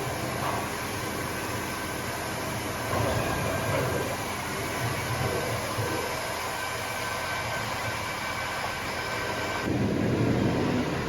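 Diesel engine of a farm loader running steadily while its grain bucket pushes up a heap of oats. The engine swells louder about three seconds in and again near the end, with a faint whine above it.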